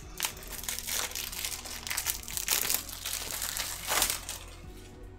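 Plastic shrink wrap being torn and crinkled off a Blu-ray case in a run of crackling bursts. The loudest come about two and a half and four seconds in, and the noise dies down near the end.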